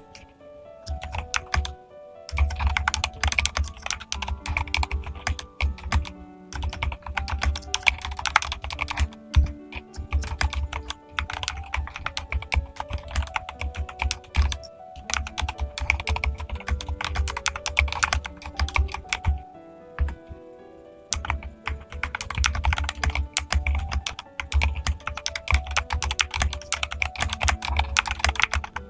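Fast, continuous typing on a modded mechanical keyboard, a dense run of key clacks broken by a few short pauses, over background music.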